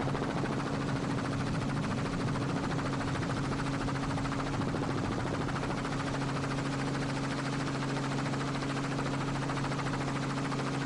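Helicopter heard from aboard: a steady engine drone with a fast rotor chop, running evenly throughout.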